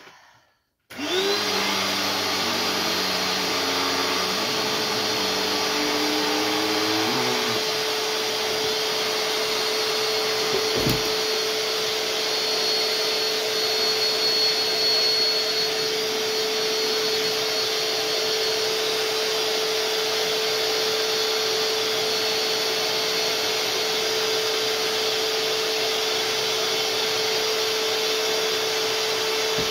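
Electric air pump switching on about a second in and running steadily and a bit loud, blowing air into a large vinyl inflatable toy as it fills.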